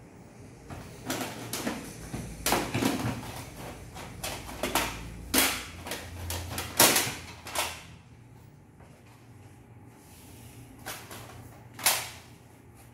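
Plastic audio cassette cases clacking and clicking against each other as they are handled, sorted and stacked. A busy run of clacks for the first several seconds, then only a few single knocks, with one sharp clack near the end.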